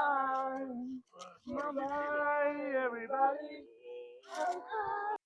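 A high voice singing long held notes in short phrases, which cuts off abruptly near the end.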